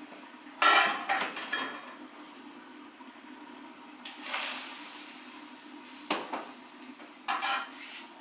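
Metal pots and lids being handled on a stove, clanking several times, with a rushing hiss lasting about a second near the middle.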